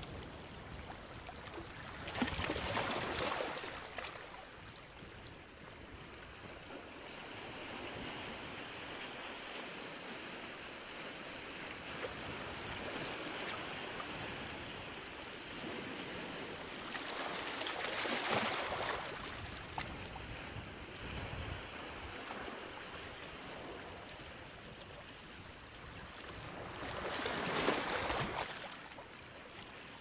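Sea waves breaking on the shore: three surges of surf, each building and fading over about two seconds, near the start, in the middle and near the end, with a softer steady wash of water between them.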